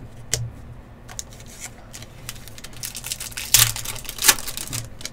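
Foil wrapper of an Upper Deck Artifacts golf trading-card pack being torn open and crinkled, with scattered light clicks of cards being handled. The loudest rips come about three and a half seconds in, and again just after.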